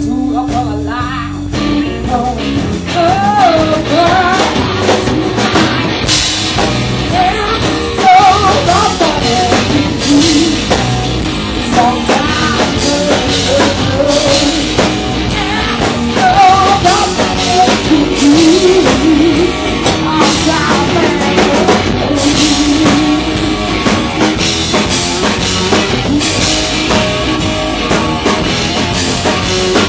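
Live blues-rock band playing loud: electric guitar and drum kit, with a woman singing and wavering, bending melodic lines over the beat.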